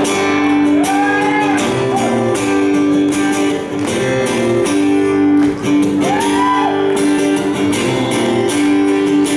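Live instrumental intro of a country song: acoustic guitar strummed in a steady rhythm under held notes, before any singing comes in. Two short gliding notes rise and fall, about a second in and again about six seconds in.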